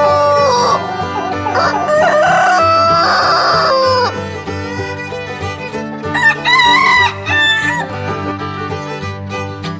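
Roosters crowing several times in a row, cock-a-doodle-doo calls that rise and fall, with a higher-pitched crow about six seconds in, over steady background music.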